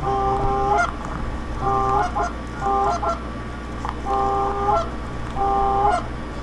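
Five long goose honks at a steady pitch, each about half a second or more, ending in a short upward break, over a low steady rumble.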